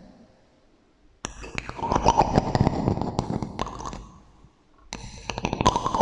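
Rapid clicking, tapping and scraping on small objects, heard through a heavy echo effect. It comes in two runs: one starting about a second in, and another after a brief pause near five seconds.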